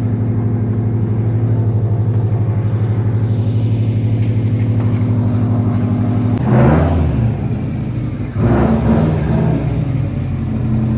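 Car engine idling steadily with an even pulse, then rising in speed twice, about six and a half and eight and a half seconds in.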